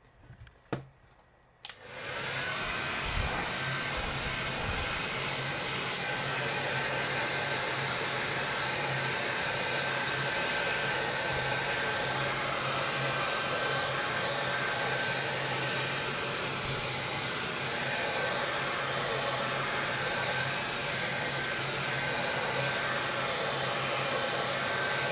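A few light knocks, then a handheld hair dryer switched on about two seconds in and running steadily, a whooshing blow with a low hum and a faint high whine, drying freshly brushed liquid latex.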